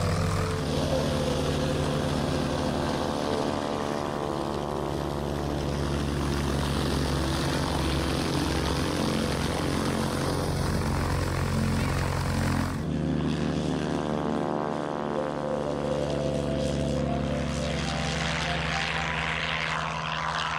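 Dornier Do 27's propeller piston engine at takeoff power on a grass takeoff run. About two-thirds through, the sound changes abruptly to another recording, where the engine note climbs and a rushing hiss builds as the plane lifts off.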